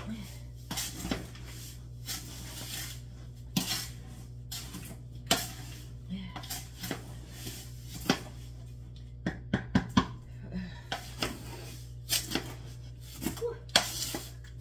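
Dry powdered drink mix being stirred in large aluminium stockpots: irregular knocks and clinks against the pot walls, with brief scraping rustles.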